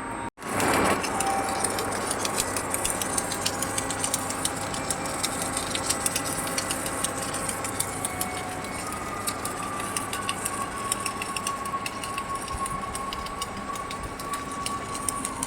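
Submerged arc welding machine running: a steady industrial hiss and hum with frequent faint crackles. A thin steady whine comes in about nine seconds in.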